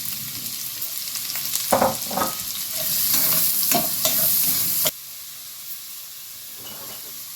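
Chopped onions and garlic sizzling in olive oil in a frying pan as they are stirred, with a few short scrapes. The sizzle grows louder for a couple of seconds, then drops off suddenly about five seconds in and carries on quieter.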